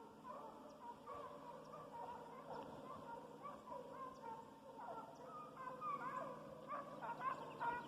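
A pack of hog-hunting hounds baying faintly, with many short overlapping calls that grow louder near the end.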